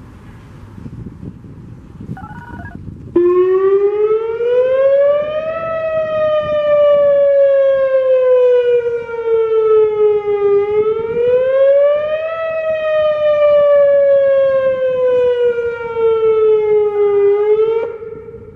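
Whelen WPS-2903 electronic outdoor warning siren sounding its short-wail test signal. The loud tone cuts in about three seconds in, then rises and slowly falls twice before stopping near the end.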